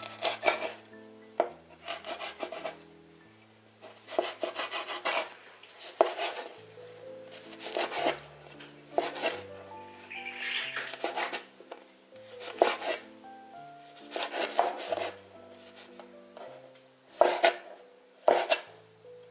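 A large kitchen knife slicing through chewy sesame candy and striking a wooden cutting board, in repeated uneven strokes about every second or two. Soft background music plays underneath.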